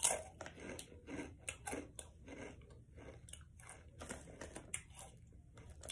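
A person chewing a crunchy snack close to the microphone: a run of crunches, about three or four a second, loudest at the very start.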